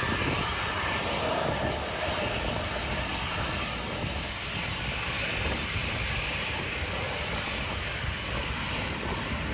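Boeing 737-700's CFM56-7B turbofan engines running steadily, a constant jet whine over a low rumble with no rise in power.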